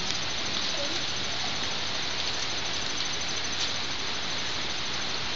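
Steady hiss of running water, unbroken throughout.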